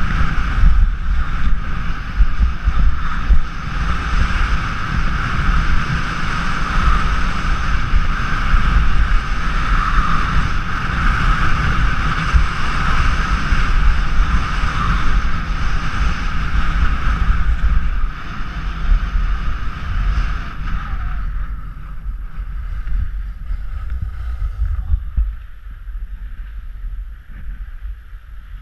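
Wind buffeting the microphone of a skier's action camera during a fast run, with the hiss and scrape of skis on packed snow. It dies down in steps over the last ten seconds.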